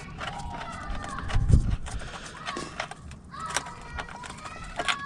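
Small metallic clicks and taps of an open-ended spanner working a brake line fitting as it is screwed into the caliper, with a dull knock about one and a half seconds in.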